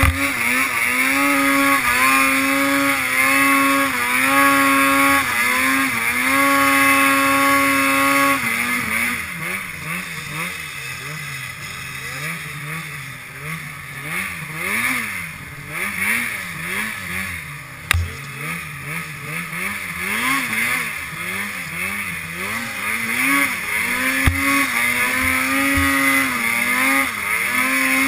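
Arctic Cat ProClimb snowmobile engine under heavy throttle in deep snow: held at high revs for the first eight seconds with brief dips, then rising and falling over and over at lower revs as the sled works through the powder, and climbing back to high steady revs near the end. A single sharp knock about halfway through.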